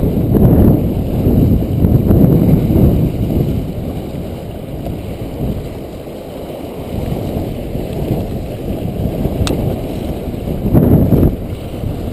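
Wind buffeting the camera microphone in gusts, a low rumbling roar that is strongest at the start and again about eleven seconds in, over waves washing against the jetty rocks. One sharp click about nine and a half seconds in.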